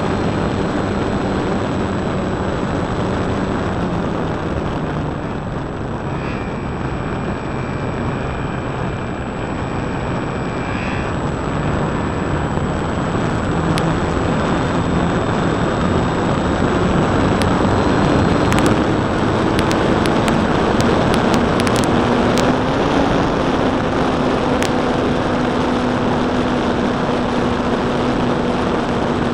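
Electric motor and propeller of a Precision Aerobatics Extra 260 radio-controlled model airplane in flight, recorded from a keyfob camera taped under the airframe, with heavy wind rush over the microphone. The motor's pitch shifts with the throttle and rises in the second half, and a handful of sharp clicks come a little past halfway.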